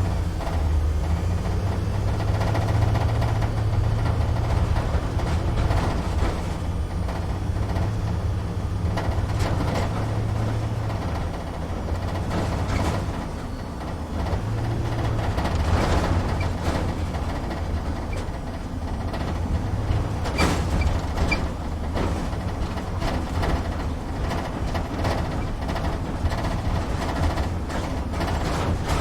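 Truck engine running at low speed, heard from inside the cab: a steady low rumble with rattling and clicking of the cab over it, and a few sharper knocks about twenty seconds in.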